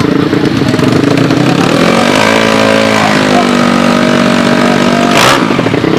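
Tuned drag-racing motorcycle engine revving: the pitch climbs about two seconds in and is held high, then a short sharp crack about five seconds in as the revs drop.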